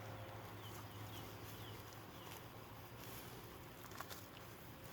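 Faint outdoor background: a low steady hum with a few short, high, falling chirps and a couple of light clicks near the end.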